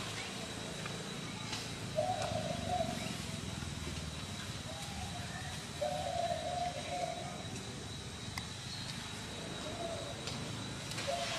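A series of low, flat cooing calls, each about half a second to a second long, repeated several times at irregular gaps, over a faint steady high-pitched tone.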